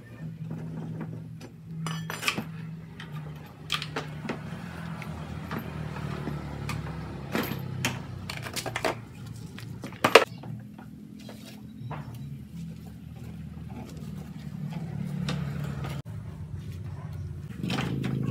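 Metal tools and scooter parts clinking and knocking during hand disassembly, irregular single clicks with a sharp knock about ten seconds in, over a steady low hum that grows louder near the end.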